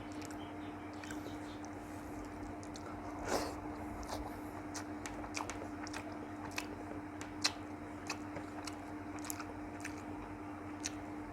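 Close-up chewing and mouth clicks of a person eating rice and curry, with a louder smacking sound about three seconds in, over a steady low hum.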